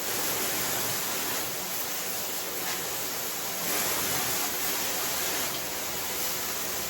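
VOXON handheld shower head on its wide fan setting spraying water onto a bathtub: a steady, even rushing hiss.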